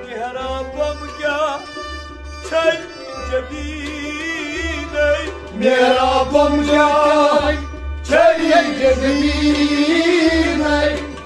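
Kashmiri Sufi devotional song: men's voices singing phrases with a wavering vibrato over a harmonium's steady held chords, with short breaths between the phrases.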